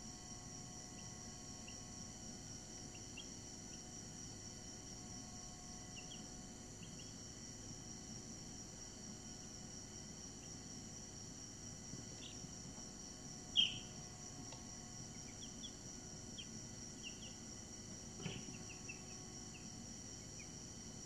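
Week-old Brahman chicks peeping faintly: scattered short, high chirps, with one louder peep about two-thirds of the way through and a single soft knock near the end, over a steady high-pitched whine.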